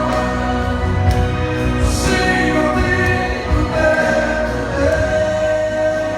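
Live gospel worship music: voices singing long held notes over a band with a steady bass.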